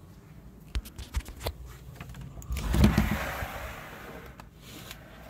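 A closet door being opened: several sharp clicks and knocks from the handle, then a rubbing, rushing noise as the door moves open, loudest about three seconds in.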